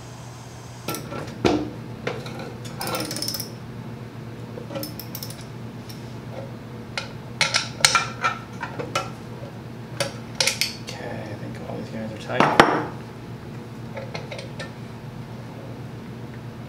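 Scattered metallic clicks, clinks and knocks as a caster wheel and its screws and washers are fitted by hand into an R2-D2 replica's aluminum center-foot housing, with a longer scraping sound about twelve seconds in. A steady low hum runs underneath.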